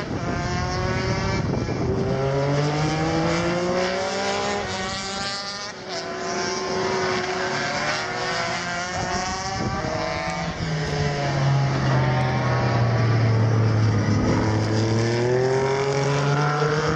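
Racing motorcycles passing one after another, their pitch rising and falling as they accelerate and slow through the turns. A deeper, louder drone comes in from about eleven seconds in.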